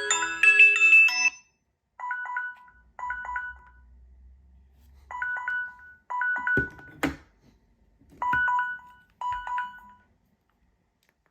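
Smartphone alarm tones. A quick marimba-like melody ends about a second in, then a short electronic chime of a few stacked notes sounds in pairs, about a second apart, until it stops about ten seconds in. Two knocks come about seven seconds in.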